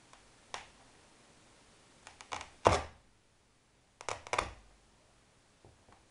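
A worn-out, shredded Adidas Neo sneaker being crushed and handled: short scrapes and crunches in three clusters, the loudest about two and a half seconds in.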